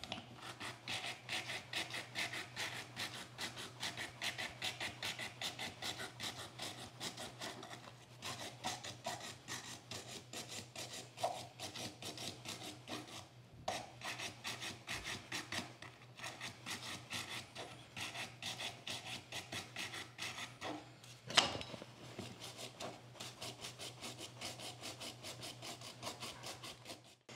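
Small wire brush scrubbing rust from the threads of a steel plane screw held in locking pliers, in quick back-and-forth strokes with two brief pauses. A single sharp knock comes about two thirds of the way through.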